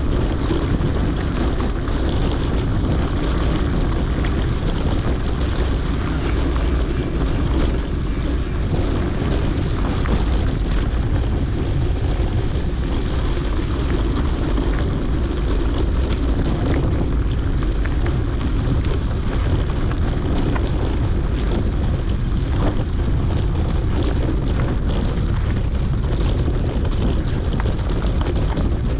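Mountain bike rolling along a dirt and gravel track, with wind rushing over the GoPro's microphone: a steady rumble with many small clicks and rattles.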